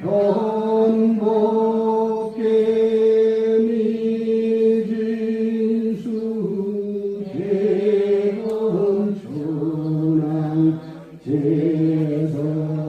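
Korean Buddhist chanting: voices sing long, held notes that bend in pitch and pause for breath every few seconds.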